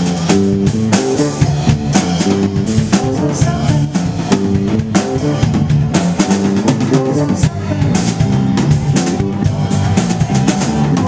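A live rock band playing, with an electric bass line moving from note to note over a drum kit keeping a steady beat.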